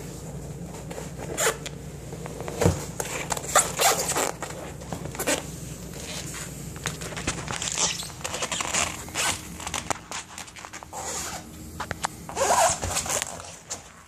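Irregular short scraping and rustling noises with a few sharp clicks, heaviest in the first few seconds and again near the end, over a low steady hum.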